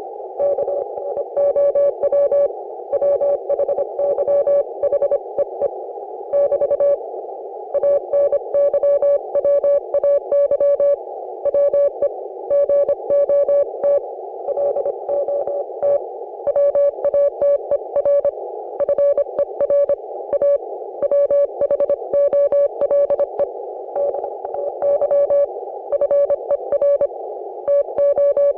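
Morse code (CW) signal heard through an Icom IC-718 HF receiver: a single steady mid-pitched tone keyed on and off in dits and dahs, with short gaps between characters and words. Under it runs a constant narrow band of receiver hiss shaped by the CW filter.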